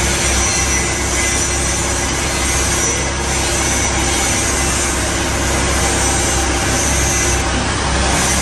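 Rasping of a hand ratchet wrench winding a car's wheel nuts onto the rear wheel, over a steady workshop hum.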